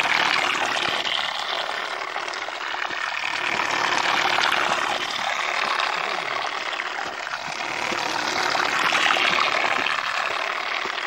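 Water churned and splashed by a small DC-motor propeller on a plastic-bottle boat. A rushing noise swells and fades several times.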